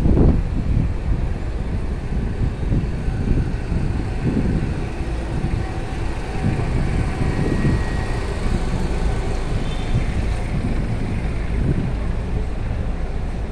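Street traffic heard as a steady low rumble, with engines passing on the road.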